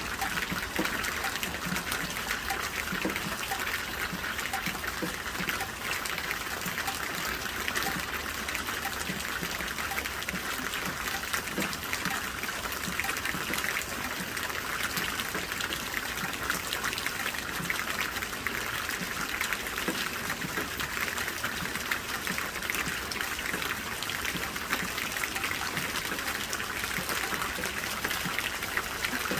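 Steady rainfall: a dense, even hiss of countless small drops striking, with no let-up.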